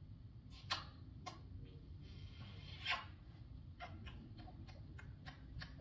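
A series of soft, irregular clicks and ticks over a faint steady low hum, the loudest about a second in and about three seconds in.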